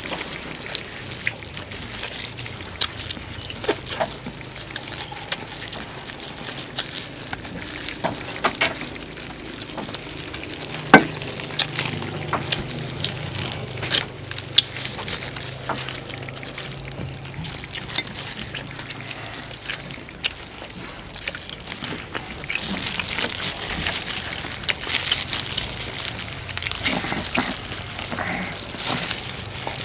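Two people eating roast duck: chewing and crunching, with scattered sharp clicks and a loud knock about eleven seconds in.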